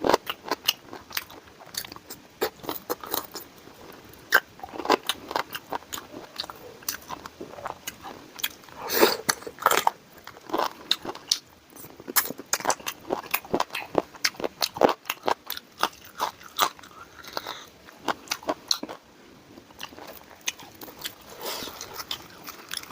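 Close-miked eating: a man chewing and biting his way through curry and luchi, with crisp crunching bites and wet mouth clicks coming in a rapid, irregular stream.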